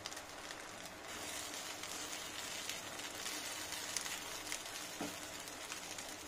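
A spatula stirring cooked wheat rava upma in a nonstick pan, a soft scraping with a faint sizzle from the hot pan, a little louder through the middle of the stretch.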